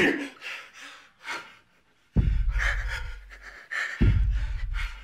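A man gasping and breathing heavily, then deep booms about every two seconds, each hitting suddenly and fading slowly like a slow heartbeat, with breaths between them.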